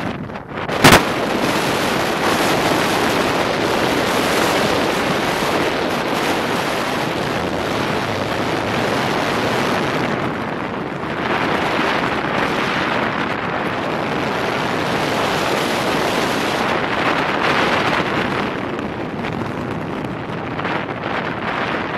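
Wind and road noise of a car moving along a highway, a steady rushing that swells and eases, with wind buffeting the microphone. A single sharp click or knock about a second in is the loudest moment.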